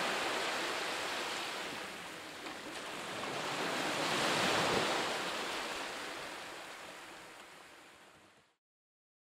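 Ocean surf: waves washing in with two slow swells, the second about four and a half seconds in, then fading out near the end.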